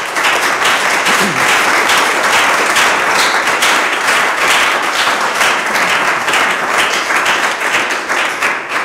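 Audience applauding, a dense run of many hands clapping that thins out near the end.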